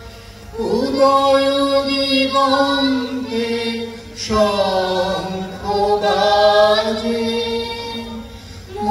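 A group of voices singing a slow Bengali song, holding long notes, with a short break between phrases about four seconds in.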